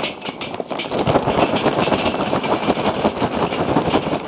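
Kingsford charcoal briquets poured from the bag into a Weber Smokey Mountain's metal charcoal ring: a steady clattering rattle of briquets tumbling onto each other and the grate.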